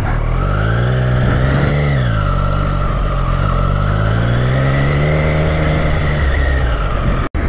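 Triumph Street Triple RS's 765 cc three-cylinder engine pulling away. Its pitch rises, drops about two seconds in, climbs again more slowly and falls off near the end. The sound cuts out for an instant just before the end.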